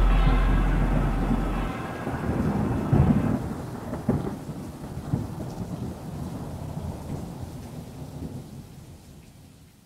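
Thunder rumbling over steady rain, with a few sharper cracks about three to five seconds in, the whole storm fading out to near silence at the end. A low held note from the song before it dies away in the first two seconds.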